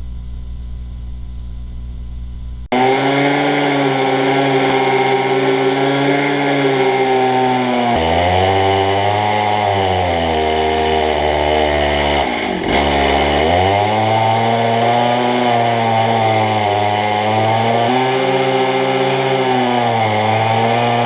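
A two-stroke gas cut-off saw fitted with an abrasive cutoff wheel, cutting through a steel truck leaf spring. It runs at a low hum at first, then is throttled up sharply about three seconds in. At full revs its pitch sags and recovers as the wheel loads in the steel, with a brief sharp dip a little past the middle.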